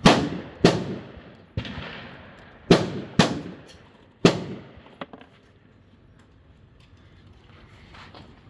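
Pistol gunshots: six sharp shots at an uneven pace over about four seconds, each with a short echo, then a fainter shot and quiet range background.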